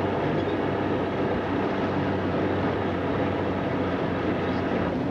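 Nissan Patrol's engine running at a steady speed under way, heard from inside the cabin with road and body noise while driving over snow.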